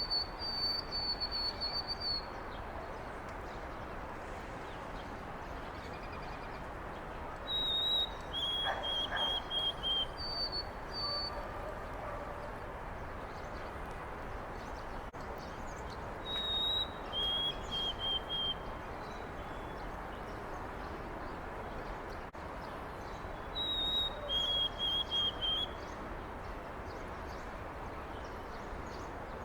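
White-throated sparrow singing its clear whistled song several times: a higher held note followed by a run of lower repeated notes, over steady background noise.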